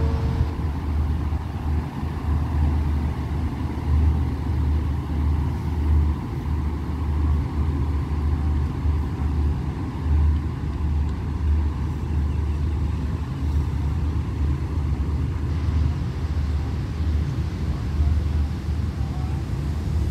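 Diesel-hauled passenger train pulling away from the station, a low, uneven rumble as it moves off down the track.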